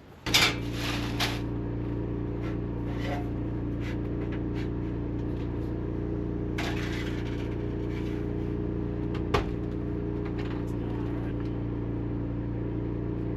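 Portable generator running steadily at an even pitch, powering the RV during permitted generator hours. A few brief rustling noises and one sharp click about nine seconds in.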